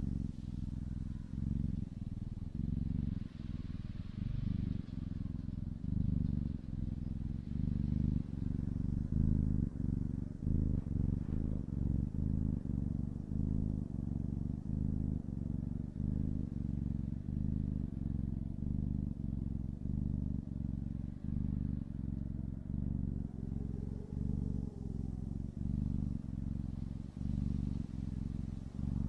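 Kitten purring: a steady low rumble that swells and dips about once a second with each breath in and out.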